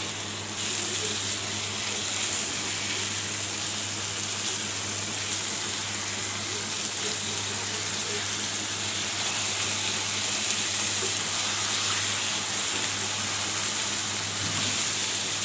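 Boal fish steaks and onion-spice masala frying in hot oil in a nonstick pan, a steady bright sizzle while they are stirred and turned with a silicone spatula. A steady low hum runs underneath.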